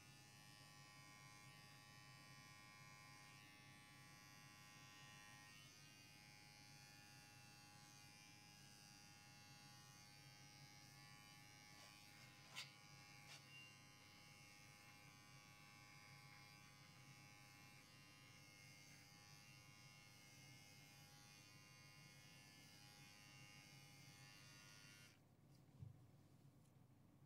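Faint electric pet hair clippers running steadily as they clip a long-haired cat's fur, with one sharp click about halfway. The clippers cut off shortly before the end.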